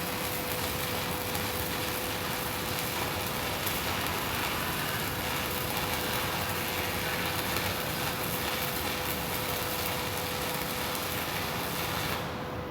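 Welding: a steady hissing crackle that cuts off suddenly about half a second before the end, with a steady hum underneath that carries on.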